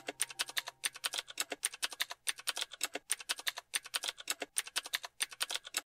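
Keyboard typing sound effect: a fast run of key clicks, about seven a second, stopping shortly before the end.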